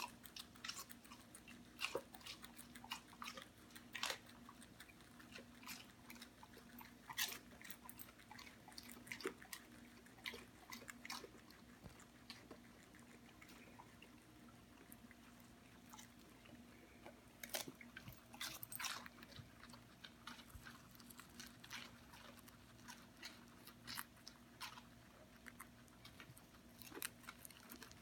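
Guinea pigs and a dog munching leafy greens: quick, irregular crisp crunches and nibbles, over a faint steady hum.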